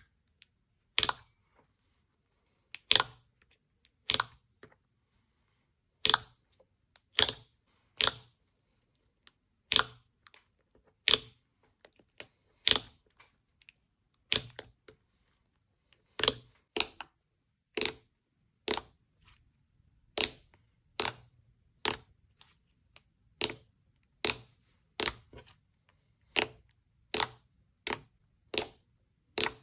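Slime being pressed and poked, giving off a run of sharp popping clicks, about one or two a second at uneven spacing, with near silence between them.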